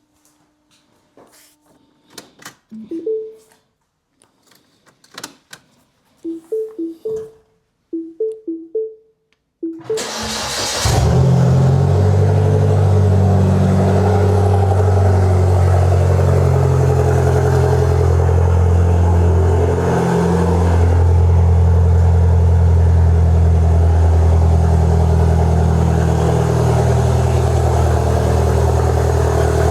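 Mini Cooper S turbocharged 1.6-litre four-cylinder firing up after a few clicks and short chirps, then idling steadily and loudly, its exhaust open with no downpipe fitted.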